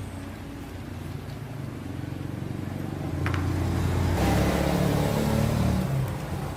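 An engine running, with a low steady note that grows louder over a few seconds and then falls away about six seconds in.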